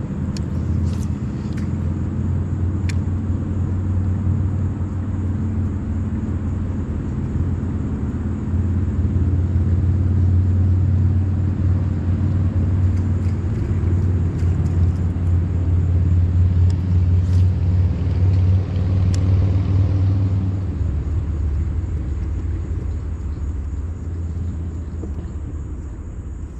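Boat motor running with a steady low hum, louder in the middle and easing off after about twenty seconds, with a few light clicks over it.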